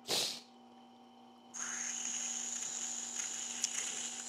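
Electric wet grinding wheel's motor running with a steady hum, with a short loud rasp at the very start. From about a second and a half in, a small metal extruder drive gear is pressed against the water-fed stone and gives a steady high grinding hiss as its protruding hub is ground down.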